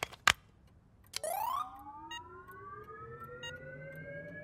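Cartoon charging-up sound effect: two clicks, then about a second in a quick rising sweep that settles into a slowly rising electronic whine, with faint beeps about every second and a half as the machine charges.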